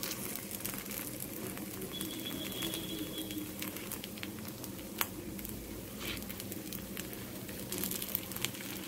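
A wooden stick clicking and scraping against a paniyaram pan as the paniyarams are turned over one by one, over a faint crackle of frying oil. The sharpest tap comes about five seconds in.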